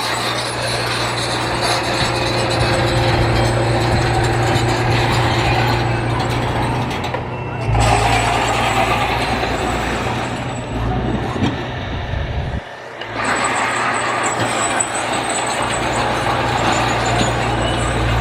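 Heavy construction machine's diesel engine running steadily under load, with metallic clattering and rattling from its moving parts. The engine sound briefly drops out about thirteen seconds in, then picks up again.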